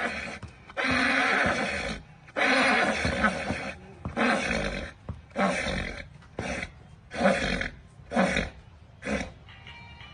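A series of about eight loud animal calls, the first two long and each after that shorter, with short gaps between them.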